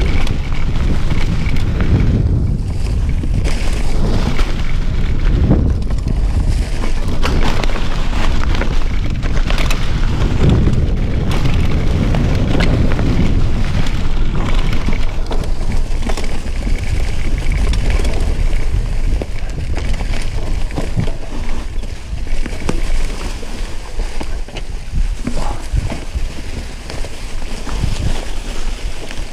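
Wind buffeting the camera's microphone during a mountain-bike ride, with a steady rumble and many small knocks and rattles from the bike on a rough trail. It eases a little in the last third.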